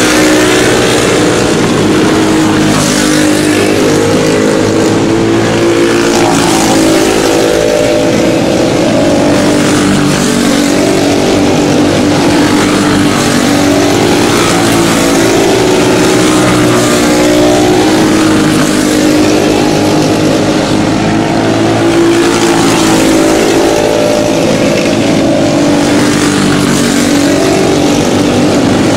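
A pack of racing karts with Briggs & Stratton Animal single-cylinder four-stroke engines running flat out. Their pitch rises and falls together in a cycle every few seconds as they accelerate down the straights and lift into the turns.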